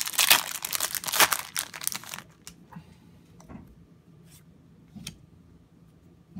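Foil wrapper of a Yu-Gi-Oh booster pack being torn open and crinkled for about the first two seconds, then a few soft clicks and taps as the cards are taken out and handled.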